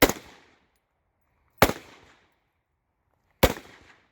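Three gunshots about a second and a half to two seconds apart, each with a short echo trailing off.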